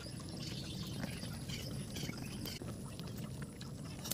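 Chicken boiling in a covered aluminium pot over a wood fire: liquid bubbling and sputtering under the plate lid, with a steady low rumble underneath.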